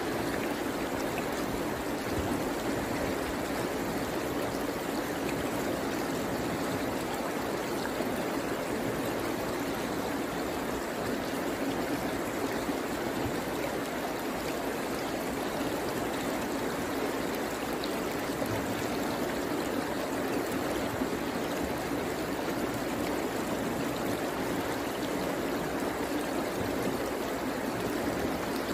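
Shallow river running over rocks: a steady, even rush of water that does not change.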